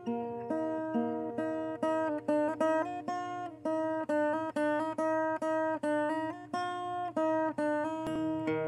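Background music: a guitar picking a steady run of plucked notes, about three a second.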